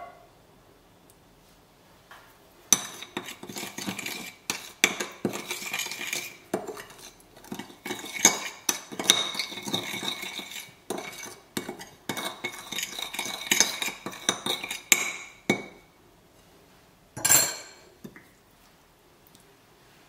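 Metal teaspoon stirring olive oil and spices in a glass bowl, clicking and scraping against the glass with quick, irregular ringing clinks for about twelve seconds. A single louder ringing clink comes near the end.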